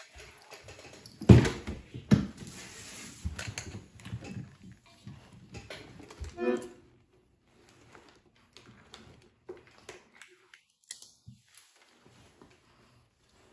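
Accordion handling noise: a few loud knocks and thumps in the first couple of seconds and a short pitched squeak just after six seconds, then faint scattered clicks, as one accordion is set aside and a piano accordion is strapped on.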